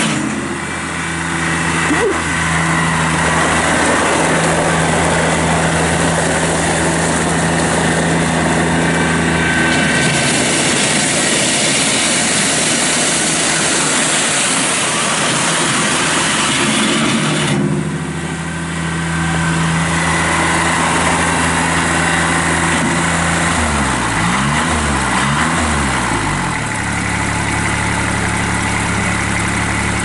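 Kubota BX23 subcompact tractor's three-cylinder diesel engine running as the tractor drives. The engine note shifts a couple of times and wavers up and down for a few seconds near the end.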